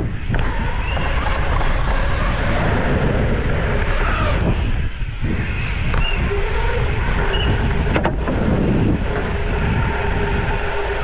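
Wind rushing across the microphone with a steady low rumble throughout, and faint wavering tones in the background.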